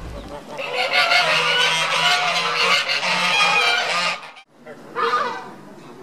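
Swan geese honking, several loud calls overlapping from more than one bird. They stop sharply about four seconds in, and a few more honks follow near the end.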